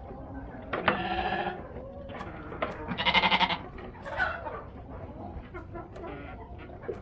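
Sheep bleating twice, two drawn-out wavering calls a second or so apart, the second the louder.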